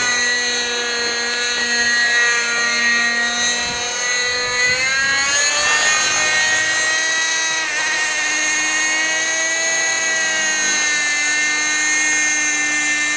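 Nitro engine and rotors of a G-Smart 18-size RC helicopter running at flying speed: a steady, loud high whine whose pitch shifts slightly up and down.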